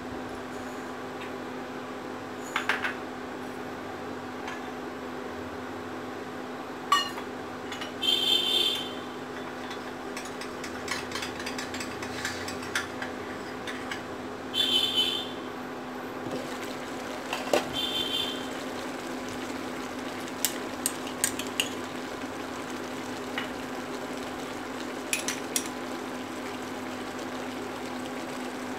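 Lidded pan simmering on an induction cooktop: a steady low hum from the cooktop, with scattered ticks and a few short rattles of the glass lid on the pan.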